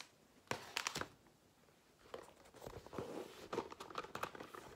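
Handling noises: light knocks and rustling of packaging as cosmetics are moved about. A few sharp clicks come about half a second in, then a longer stretch of rustling starts about two seconds in.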